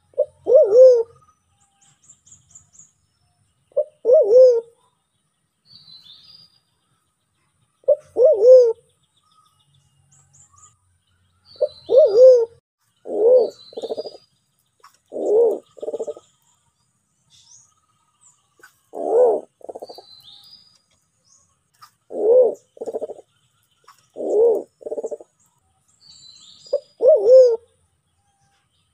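Sulawesi black pigeon cooing: a loud low call repeated every few seconds, sometimes as a pair of notes, each note arching up and down in pitch. Faint high chirps of other birds come between the calls.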